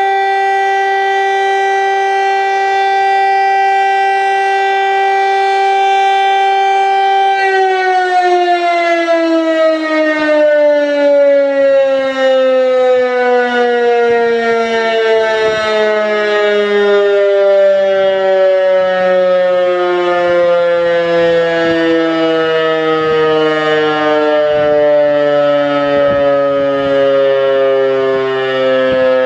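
Loud civil defense siren sounding a single steady tone for about seven seconds, then winding down in a long, slowly falling pitch through the rest.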